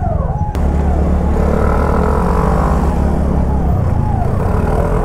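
Road noise from a ride on a TVS Ntorq scooter: a heavy low rumble of engine and wind on the helmet camera, with a passing vehicle's engine bending in pitch midway. A repeating falling tone, about two to three a second, is heard at the start and again near the end.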